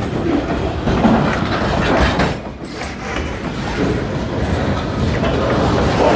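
Kiamichi Railroad freight train rolling by: a steady, loud rumble of wheels on the rails, broken by many irregular knocks.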